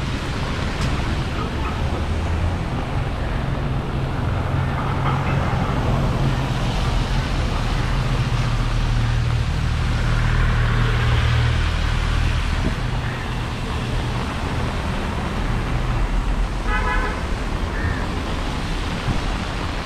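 Busy city street traffic: a steady low rumble of vehicle engines and road noise, with a short horn toot near the end.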